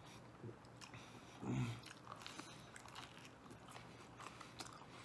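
A man chewing a mouthful of deep-dish pizza, with faint wet mouth clicks throughout. A brief, louder low mouth sound comes about one and a half seconds in.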